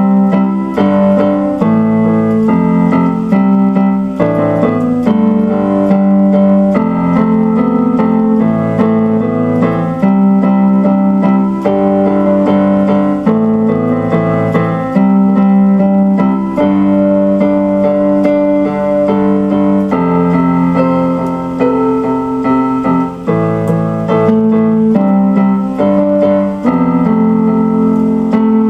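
Electronic keyboard playing a slow instrumental piece in piano-like sustained chords, the harmony changing every second or two.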